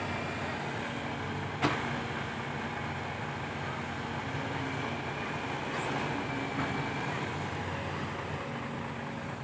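Diesel engines of dump trucks and a hydraulic excavator running steadily at a low, even pitch, with a single sharp knock about a second and a half in.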